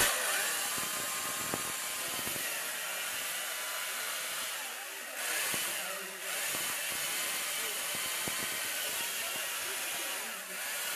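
Chainsaw running steadily as it carves into a block of ice, its sound dropping briefly about five and six seconds in and again near the end.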